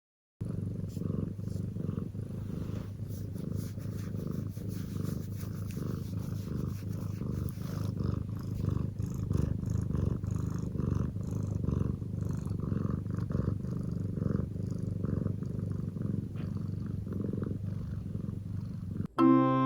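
A domestic cat purring steadily, with a continuous low rumble; a short musical jingle starts at the very end.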